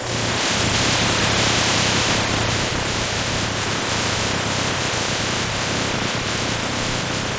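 Steady, loud hissing noise with a low hum underneath.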